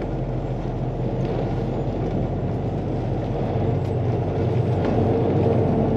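A semi truck's diesel engine running with a steady low hum, heard from inside the cab.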